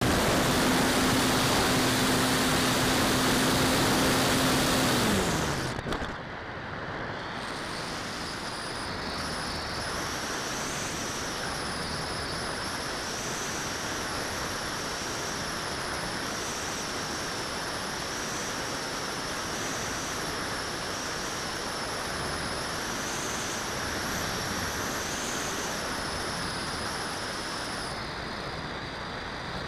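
Onboard recording of a radio-controlled motor glider: the nose propeller and motor run with a loud, steady pitched drone that winds down, falling in pitch, about five seconds in as the motor is cut. After that comes a steady rush of air past the gliding model, with a faint wavering high whistle.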